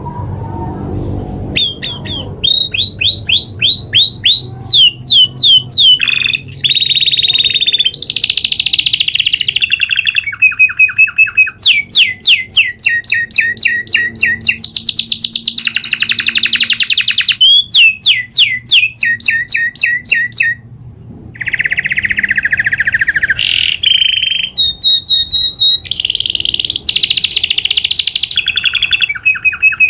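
Domestic canary singing a long, rolling song of fast trills of repeated notes, switching to a new phrase every second or two, with one short break about two-thirds of the way through.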